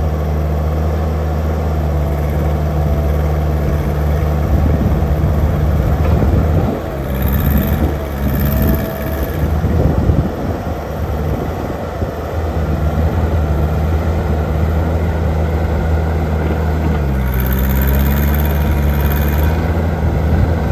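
JCB Midi CX compact backhoe's diesel engine running at a steady note, which wavers and dips about seven seconds in and shifts again near the end.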